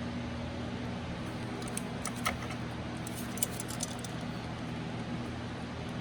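Steady low mechanical hum with a few light metallic clicks and clinks, about two seconds in and again a little past three seconds.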